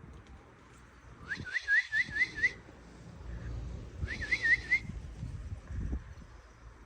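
Whistling in two quick trills of short, rising chirp-like notes, about six notes in the first and four in the second, over a low rumbling background.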